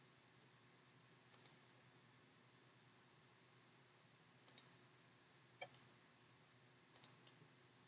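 Computer mouse button clicks, four times, each a quick pair of clicks in close succession, against a quiet room.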